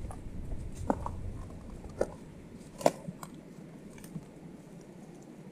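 A few irregular footsteps crunching on loose gravel and rock, about five sharp crunches with the loudest near the middle, over a low rumble that fades out after about two seconds.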